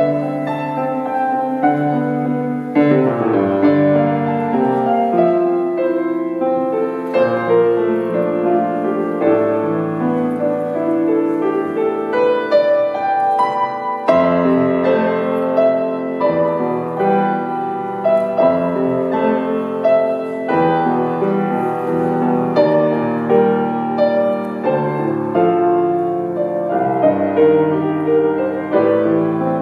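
Solo grand piano playing a flowing piece, with low bass notes held under a moving melody.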